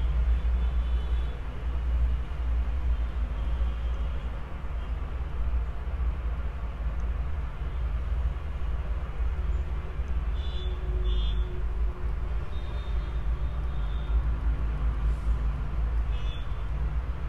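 Steady low background rumble with a faint hiss, and a few brief faint high tones about ten seconds in and again near the end.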